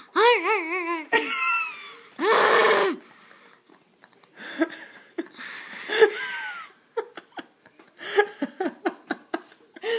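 Laughter and giggling in bursts: a wavering high-pitched laugh at first, a loud breathy burst about two seconds in, then quieter breathy giggles and a quick run of short chuckles near the end.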